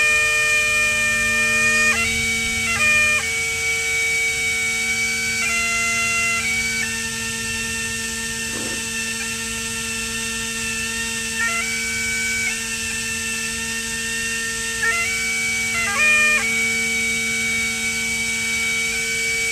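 Bagpipes playing a slow melody of long held notes that step between pitches, over a steady unbroken drone.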